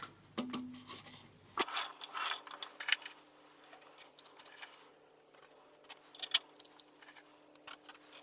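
Scattered small clicks, taps and scrapes of tools and small metal parts being handled at a workbench, the sharpest click a little past six seconds in.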